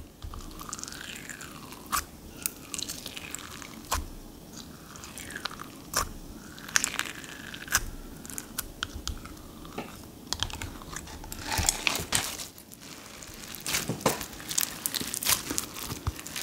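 Glitter-packed bingsu-bead slime crackling and crunching as fingers dig and pull it out of its round plastic tub, with scattered sharp clicks and a few short squeaks. The crackling grows denser near the end as the freed lump is squeezed.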